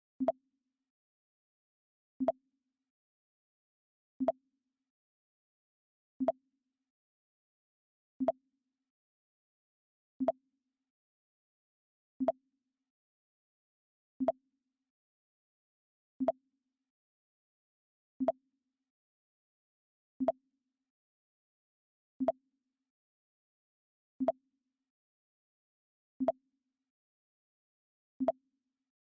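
Mac OS X "Pong" alert sound, a short low blip, played over and over at a steady pace of about one every two seconds.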